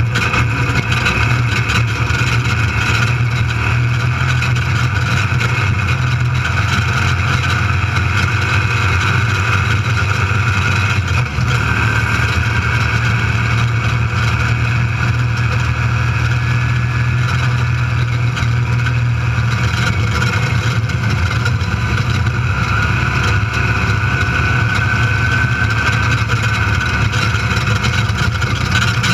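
Desert race vehicle's engine running steadily at speed, heard from inside the cockpit along with road noise, with one brief drop in level about eleven seconds in.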